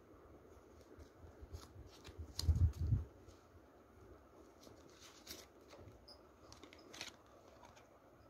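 Hands handling a Blu-ray digipak and disc: scattered light clicks and rustles of cardboard and plastic, with a couple of soft low thumps about two and a half seconds in, the loudest part.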